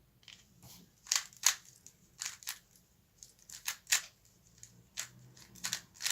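MGC 3x3x3 V2 stickerless magnetic speed cube being turned fast, its plastic layers clacking in quick, irregular bunches of clicks.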